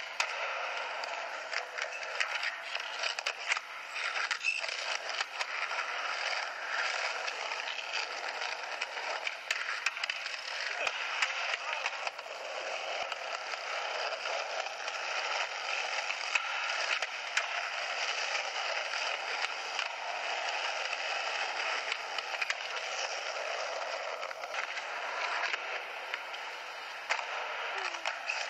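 Skateboard wheels rolling over concrete with scattered clicks and knocks from cracks and the board. It is heard tinny and thin through a camcorder's small playback speaker.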